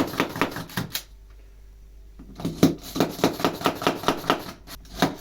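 Stanley Yankee spiral-ratchet push screwdriver being pumped hard to drive screws: quick, even clacks about five a second. They pause about a second in and start again over a second later.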